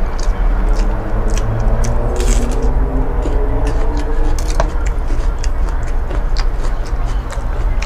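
Close-up eating sounds: a person chewing food, with many short, sharp clicks and crunches from the mouth and food, over a steady low hum.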